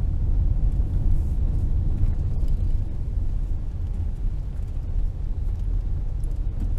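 Steady low rumble of a car driving slowly on a paved road, heard from inside the cabin.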